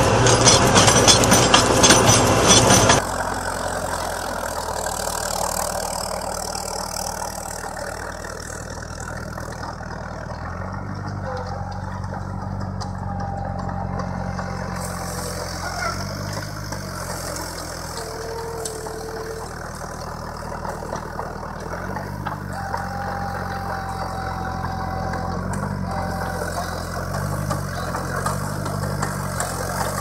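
A tractor-mounted spading machine working the soil, loud, until a sudden change about three seconds in. Then a small crawler tractor's engine runs steadily under load as it pulls a rotary tiller through the soil, its pitch dipping briefly several times.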